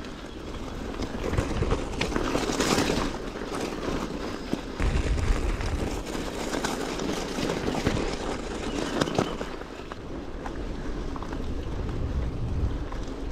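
Bicycle riding noise: wind buffeting the microphone, tyres running over the path, and a few short rattles and clicks from the bike.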